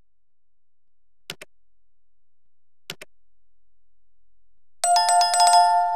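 Subscribe-button sound effects: two light mouse clicks about a second and a half apart, then, near the end, a notification bell jingle. The bell is struck rapidly for about half a second, and its tones ring on and fade.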